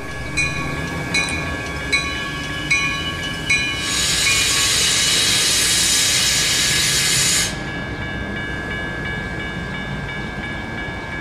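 Metra commuter train pulling slowly into a station, its low rumble steady while a bell rings about once every three-quarters of a second. About four seconds in, a loud hiss of air from the train runs for about three and a half seconds, then cuts off.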